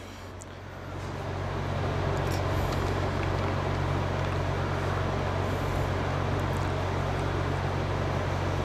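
Steady mechanical hum: a low drone with an even hiss over it, swelling about a second in and then holding steady. A few faint ticks sound over it.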